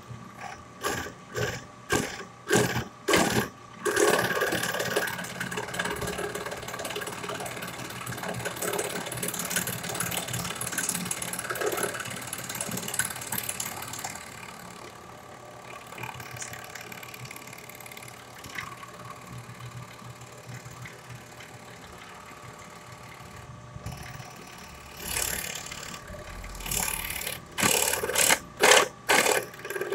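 Rotary power tool with a cutter bit milling a groove into a wooden airgun stock: the motor runs with a rough cutting noise. It comes in a quick run of short cuts, about two a second, at the start and again near the end, with a steadier and then quieter cut in between.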